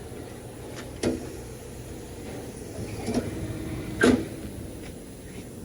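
Three sharp knocks over a steady low background, about one, three and four seconds in, the last the loudest.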